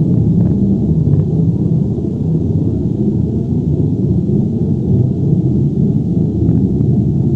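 Earthquake or avalanche rumble sound effect: a loud, steady, deep rumbling with a few faint crackles above it.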